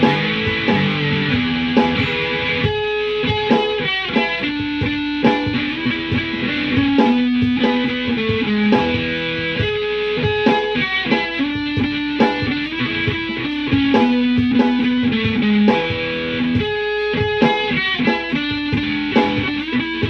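Electric guitar playing a melody of held single notes that step from pitch to pitch, with chords underneath.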